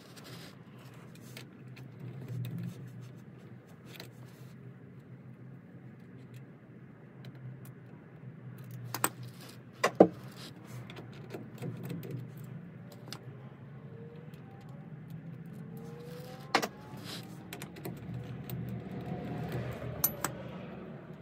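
Metallic clinks and sharp taps of small steel parts and hand tools against the wheel hub, played at double speed, with a handful of louder clicks scattered through.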